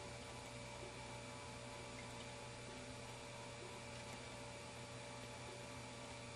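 Steady low electrical hum under a faint even hiss: room tone with nothing else happening.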